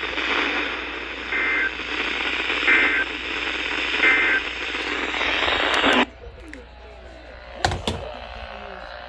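Weather radio receiver hissing with static, with three short two-tone data chirps about 1.3 seconds apart, the digital header that opens a broadcast alert; the hiss cuts off suddenly about six seconds in. A sharp click follows near the end.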